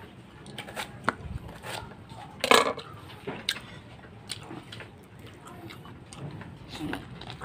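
Close-up mouth sounds of a person biting and chewing raw, unripe soursop flesh, with repeated short wet clicks and smacks and a louder burst about two and a half seconds in. Unripe, the fruit is tough and chewy.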